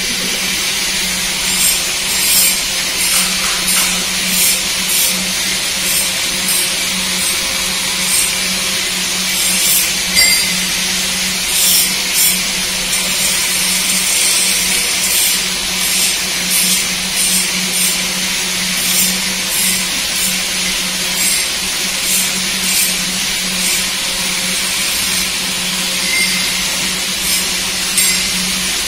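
Electric hydraulic power pack of a steel scissor lift table running while the table rises: a steady motor-and-pump hum with a hiss and a rhythmic rasping pulse about once or twice a second.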